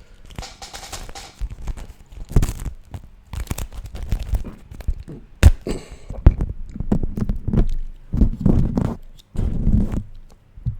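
Beeswax food wrap handled close to the microphone, crinkled, pressed and pulled so that it crackles and sticks, with irregular clicks and low thumps and a sharp snap about halfway through.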